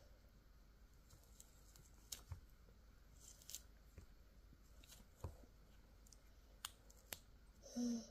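Faint, scattered small clicks and tearing of orange peel being picked off by a toddler's fingers, over near silence. A brief, louder sound comes near the end.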